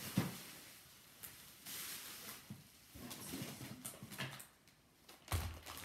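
Light handling noises from unwrapping a gift: scattered small clicks and brief rustles of wrapping paper and packaging, with a louder thump on the table near the end.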